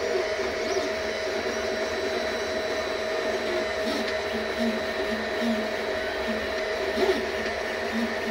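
FDM 3D printer at work: its stepper motors whine in several steady tones, with short notes that change pitch every so often as the print head moves, over a constant fan-like hiss.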